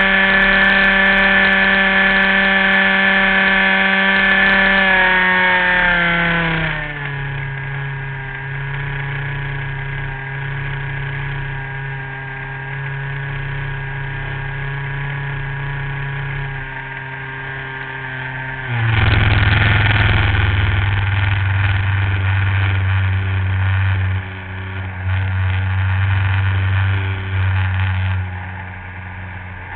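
Radio-controlled model plane's engine heard from an onboard camera: a steady buzz that drops in pitch about six seconds in as it is throttled back, runs lower and quieter for a while, then turns suddenly louder with a rushing noise about nineteen seconds in.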